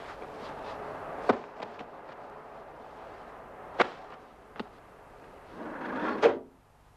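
Sharp knocks and clunks of luggage going into a car's boot, about three of them, then a louder slam near the end as the boot lid is shut, over a steady hiss.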